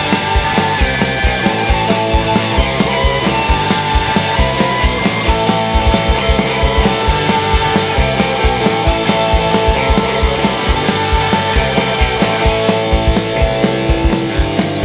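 Loud punk-rock band music with a fast, driving drum beat and distorted guitars, without vocals.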